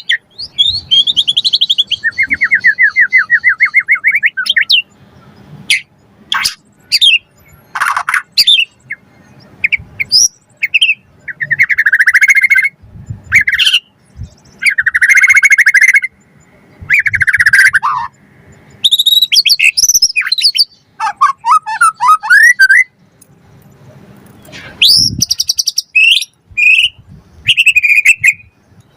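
White-rumped shama (murai batu) singing in full voice: a string of varied phrases broken by short pauses, mixing clear whistled notes, a buzzy rattling trill and fast chattering runs.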